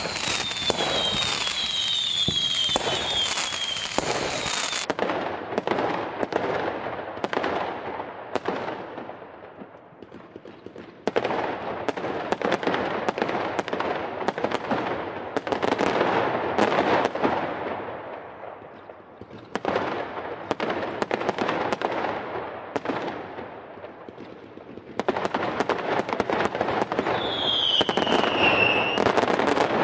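Fireworks going off in waves of rapid bangs and crackles. Whistling shells give several falling whistles near the start and another one near the end.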